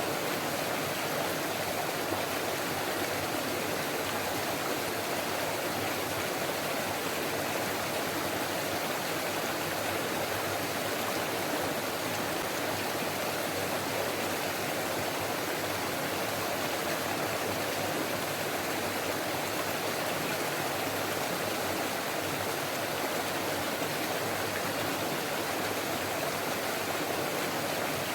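A forest stream running and babbling over rocks, a steady, even rush of water.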